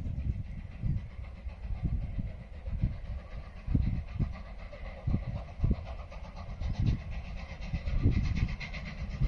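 Ex-South Australian Railways steam locomotive working up the grade out of sight, its exhaust beats and running coming through faintly and growing louder toward the end as it nears. Irregular low rumbles of wind on the microphone are the loudest thing throughout.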